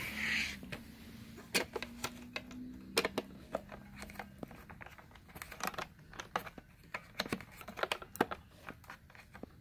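Hard plastic parts of a new Shark Navigator Lift-Away upright vacuum being handled and fitted together: a brief scraping rush at the start, then many light clicks and taps.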